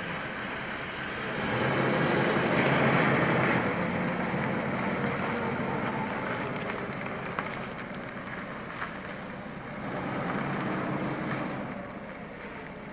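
Car engine and tyres as a car pulls away, growing louder about two seconds in, then fading as it drives off. A second, smaller swell of vehicle noise comes near the end.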